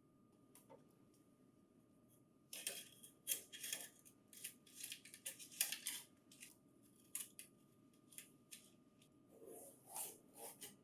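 Packing tape being peeled off the plastic housing of a printer finisher: a quick run of short crackling rips starting about two and a half seconds in, then scattered clicks and taps of handling.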